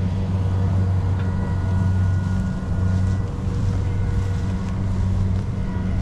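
An engine running steadily at an even speed, a constant low hum.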